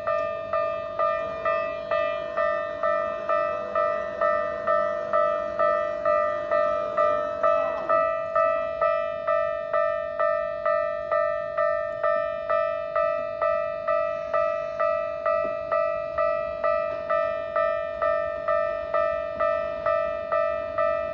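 Japanese electronic level-crossing warning bell ringing steadily at about two strikes a second, each strike a fixed-pitch clang that fades quickly. It signals that the crossing is closing or closed for an approaching train.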